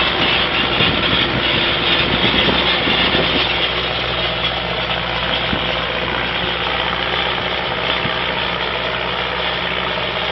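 Ursus 1014 tractor's diesel engine running steadily under ploughing load, with a dense hiss over it. The engine and hiss are a little louder for the first few seconds, then settle.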